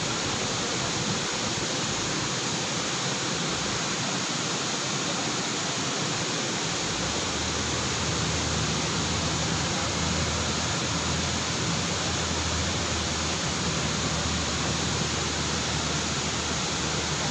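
Steady rushing of a waterfall, even and unbroken; a low hum joins about seven seconds in.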